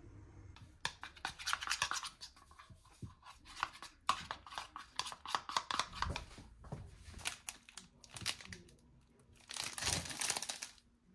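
Metal fork whisking a thin liquid in a plastic bowl, its tines scraping and clicking rapidly against the plastic, with a second burst of the same quick scratching near the end.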